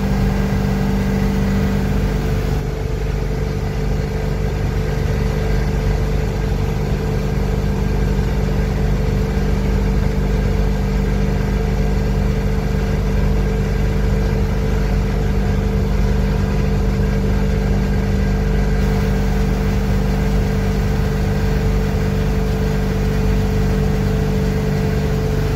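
7.3 IDI V8 diesel of a 1988 International S1654 wrecker tow truck running at steady highway cruise under tow load, heard from inside the cab as a constant loud drone with road rumble.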